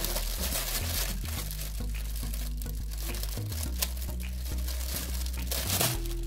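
Plastic mailer bag crinkling and tearing as it is cut open with scissors, a dense irregular crackle with a sharper click a little past the middle.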